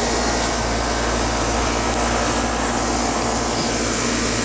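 2009 Payne 4-ton, 48,000 BTU central air conditioner condensing unit running steadily, its Copeland scroll compressor and GE condenser fan motor giving a low, even hum under a steady rush of fan air.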